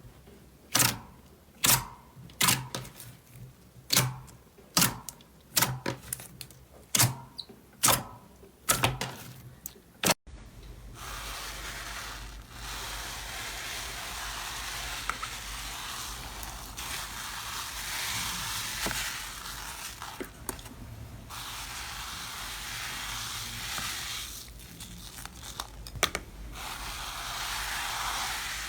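Slime being handled: first a run of sharp pops, about one a second, then after a cut a continuous crackling, squishing sound of slime being pressed and kneaded.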